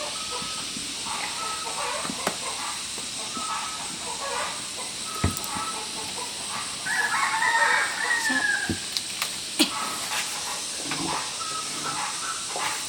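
A rooster crowing once, about seven seconds in, a call of about a second and a half that falls in pitch at the end. Under it are a steady high hiss and a few scattered clicks and knocks.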